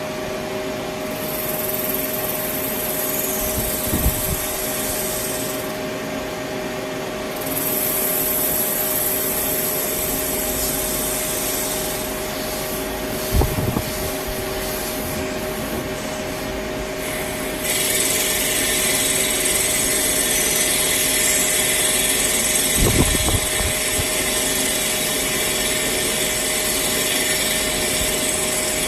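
CNC turning centre machining a metal part: a steady machine hum, with a hissing cutting noise that stops about six seconds in, starts again a second later and grows louder near the two-thirds mark. There are a few short knocks.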